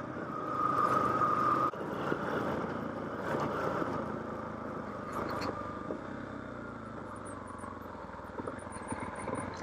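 Adventure motorcycle's engine running as it is ridden along a dirt track. It is louder for the first couple of seconds, then drops and runs lower and steady.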